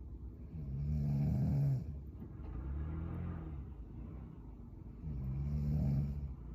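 A woman snoring in her sleep: two loud snoring breaths in, about four and a half seconds apart, with a softer breath out after the first.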